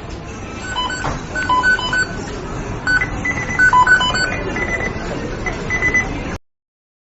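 McDonald's kitchen beeping sound effect: several electronic equipment timers sound short beeps at different pitches, singly and overlapping, over a noisy kitchen background. It cuts off abruptly about six seconds in.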